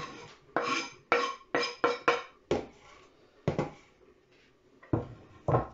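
Kitchen knife scraping and knocking chopped herbs off the edge of a wooden cutting board into a plastic bowl. There are about ten sharp clinks, each with a brief metallic ring, at irregular intervals, with a cluster in the first two seconds and two more near the end.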